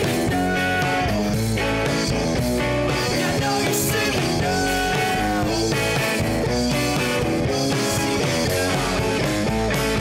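Rock music playing as a soundtrack, steady and continuous.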